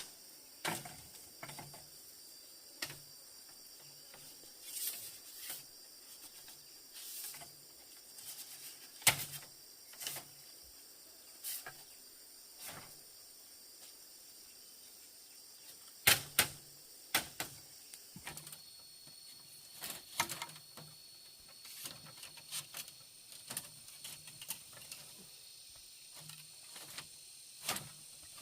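Irregular sharp knocks and clicks, the loudest about nine seconds in and around sixteen seconds in, over a steady high chirring of insects.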